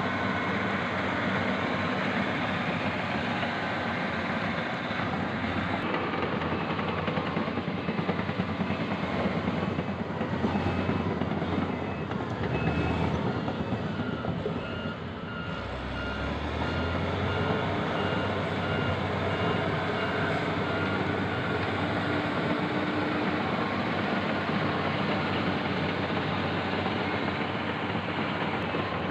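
Heavy earthmoving machines' diesel engines running steadily. For several seconds around the middle, a reversing alarm beeps in an even repeating pattern as one of the machines backs up.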